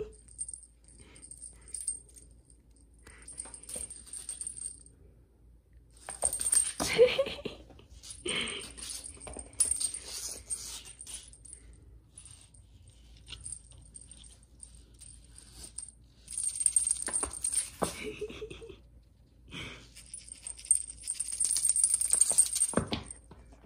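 A small bell on a feather wand cat toy jingling in short bursts as the toy is waved and flicked about.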